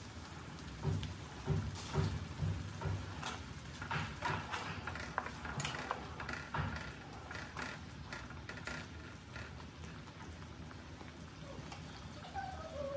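Sauce simmering and bubbling in a metal wok around leafy greens, with a spatula stirring and knocking against the wok for several seconds in the middle.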